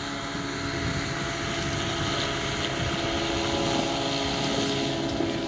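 Radio-controlled scale model Bell 430 helicopter running steadily as it hovers low and sets down on its wheels: the drive and the spinning main and tail rotors make a steady whine with a noisy whirr beneath.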